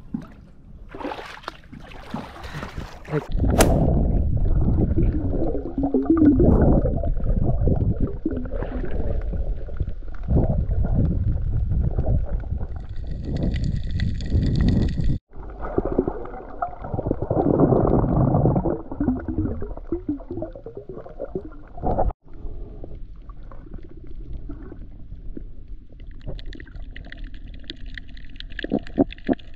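Muffled water noise heard underwater while snorkeling: a dense, low sloshing and rumbling that starts a few seconds in and breaks off abruptly twice.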